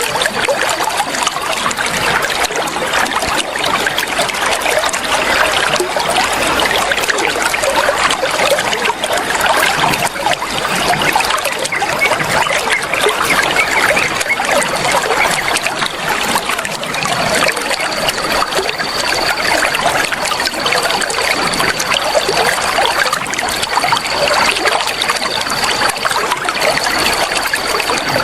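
Flowing water trickling steadily.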